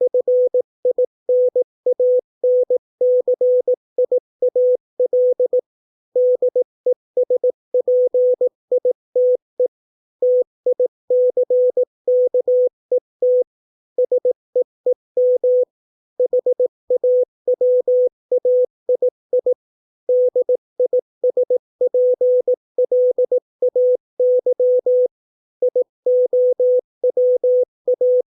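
Morse code (CW) practice signal: a single steady beep keyed on and off in short dits and long dahs at 18 words per minute, spelling English words with a brief pause between each word.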